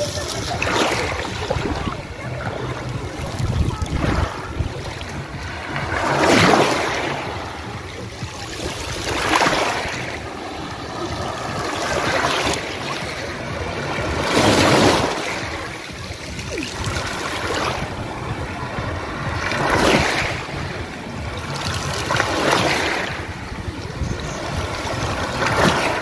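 Small sea waves breaking and washing up over a pebble beach. The wash swells and fades about every two and a half to three seconds.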